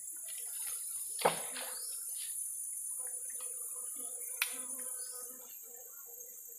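High-pitched steady chorus of forest insects, which thins out about five seconds in. Two sharp clicks sound over it, the louder one about a second in and another about three seconds later.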